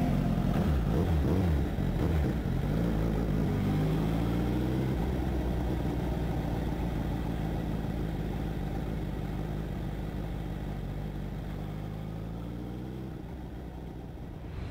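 Honda CBR1000RR (SC77) inline-four engine heard from an onboard camera as the bike slows: the engine note drops and wavers through the first couple of seconds, then runs at low revs while the bike rolls slowly, gradually getting quieter, with wind rush over the microphone.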